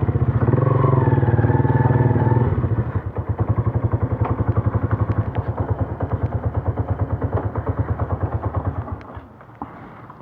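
Yamaha FZ V2's single-cylinder engine running through an Akrapovic slip-on exhaust: louder for the first couple of seconds, then settling to an even idle beat before it is switched off about nine seconds in.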